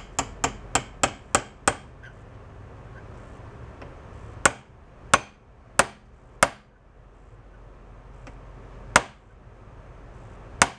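Ball-peen hammer striking a pin punch to drive out a pin that has sat in place for 76 years: a quick run of about six light taps in the first two seconds, then four harder metallic blows about two-thirds of a second apart, and two more spaced-out blows near the end.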